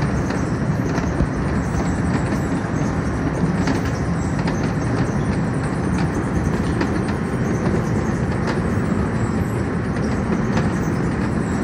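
Potato receiving conveyors running, with potatoes tumbling and knocking along them: a steady dense clatter with scattered sharp knocks.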